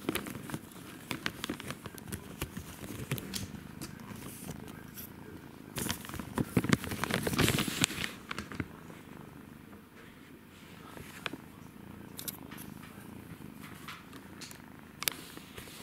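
Thai (Siamese-type) kitten purring steadily close by, with scattered soft clicks and rustles. A louder stretch of rustling and scuffling comes about six to eight seconds in.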